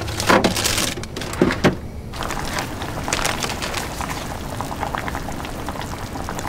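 A few sharp plastic rustles in the first two seconds as packages are handled, then a pot of spicy braising liquid with pork trotters bubbling at a simmer, a steady crackle of small pops.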